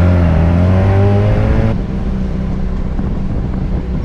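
Tuk-tuk engine running under load, its pitch rising as it accelerates, then the sound changes abruptly about two seconds in and settles into a steady drone.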